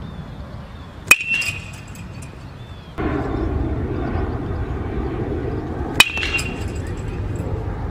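Two metal baseball bat hits about five seconds apart, each a sharp ping with a short ringing tone, as the bat meets tossed balls in batting practice.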